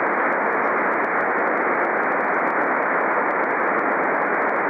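Steady receiver hiss from a Kenwood transceiver in SSB receive on the 23 cm band (1296 MHz), cut off sharply above about 2.5 kHz by the SSB filter. It is the receiver's noise floor on an open channel while listening for a moon-bounce (EME) reply, with no signal standing out of the noise.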